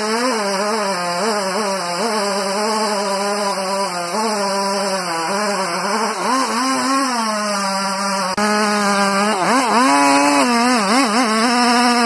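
Gasoline chainsaw cutting into a large tree trunk, its engine running at high revs with the pitch wavering up and down as it loads and recovers in the cut. It gets a little louder about eight seconds in.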